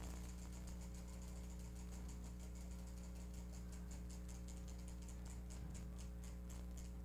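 Spinning prize wheel clicking as its pegs strike the pointer, rapid at first and gradually slowing as the wheel winds down.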